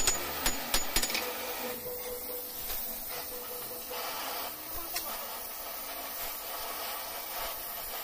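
A few hammer blows on a hot steel rod lying on an anvil in the first second, then the steady hiss of an oxy-fuel gas torch flame heating the rod.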